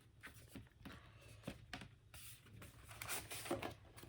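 Faint rustling and light clicks of a vinyl record and its paper sleeve being handled and slid out, a little louder about a second and a half in and again near three seconds.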